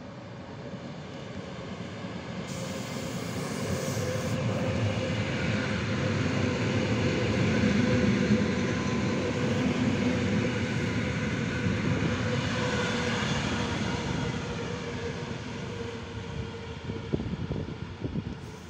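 PKP EN57AL electric multiple unit passing along the platform. The rumble of its wheels on the rails swells to its loudest about eight seconds in and then fades, with a steady electric hum under it. A few sharp clicks come near the end.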